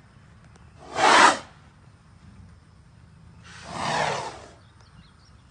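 Arabian horse snorting twice through its nostrils: a short, loud snort about a second in and a longer, softer one around four seconds in.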